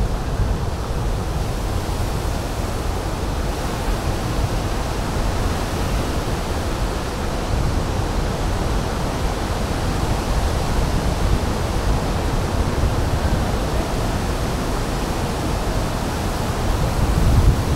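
Wind buffeting the microphone of a camera on a moving bicycle: a steady rushing noise, heaviest in the low end, with a brief swell near the end.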